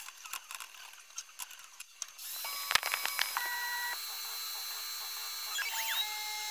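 Faint scattered ticks, then about two seconds in the CNC-converted PM-25MV mill comes on with a steady high whine and one sharp click. Over the whine the axis motors whine in tones that step up and down in pitch as the table moves.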